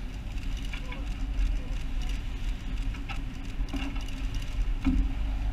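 A research vessel's engine running steadily with a low hum, and wind rumbling on the microphone. A few faint knocks come through now and then.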